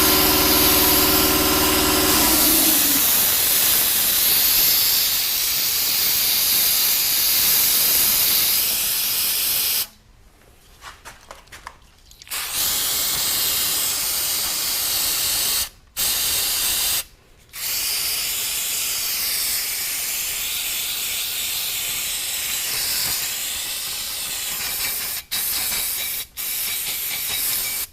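Compressed-air blow gun hissing in long blasts, blowing loose debris off, with the trigger let go briefly several times. A steady machine hum stops about two seconds in.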